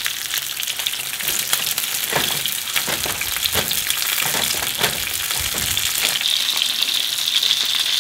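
Starch-coated fluke pieces sizzling and crackling steadily in hot oil in a frying pan. In the middle come a few knocks and scrapes of a spatula against the pan as the fish is turned.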